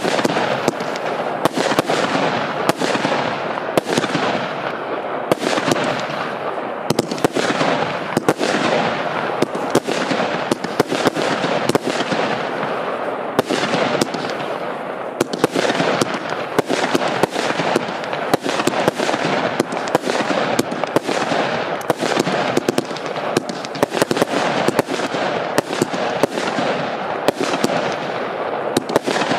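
Piromax Falcon 64-shot 20 mm fireworks cake firing shot after shot without a break: a steady run of launches and bursts with many sharp pops.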